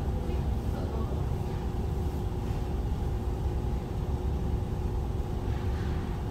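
Steady low machinery rumble with a constant hum running under it.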